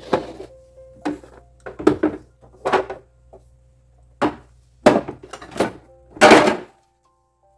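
A run of short knocks and clatters, about nine, as household things are handled and set down while cleaning a fridge. The loudest comes near the end and cuts off suddenly.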